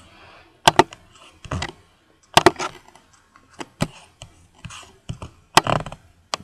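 Sharp clicks close to the microphone, a handful at irregular intervals, with faint rustling between them. They sound like a computer mouse clicking while smiley-face stamps are placed in an image editor.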